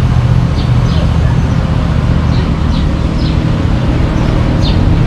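Street traffic noise with a steady low engine hum, and a few short high chirps scattered through it.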